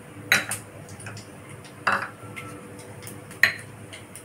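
Stainless-steel bowls and a spoon clinking against each other and the counter, three sharp clinks a second and a half apart, one leaving a short ring, over a steady low hum.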